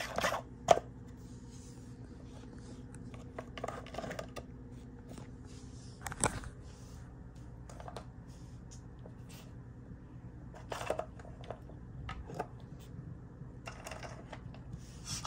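Scattered light clicks and taps of plastic lids being pushed and slid around a wooden cat treat-puzzle board, over a steady low hum.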